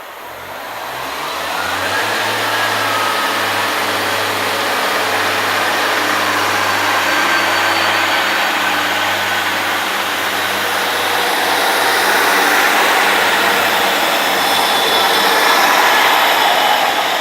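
Diesel engines of a Class 142 Pacer and Class 150 Sprinter multiple unit working hard under power. The engine note climbs over the first two seconds, then holds steady and loud.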